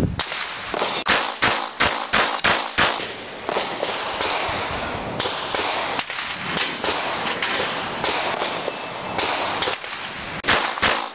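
A .40 caliber Glock 22 pistol fired fast from a Micro Roni carbine chassis: a quick string of about eight shots over three seconds. After a pause, another rapid string starts near the end.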